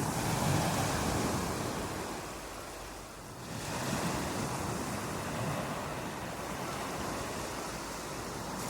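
Ocean surf: waves breaking and washing on a beach, with a surge near the start, a brief lull about three seconds in, then another wave breaking.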